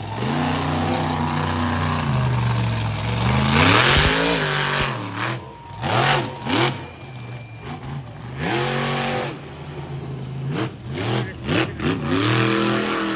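Monster truck engine revving hard in repeated bursts, its pitch climbing and dropping back about four times, with a low thump about four seconds in.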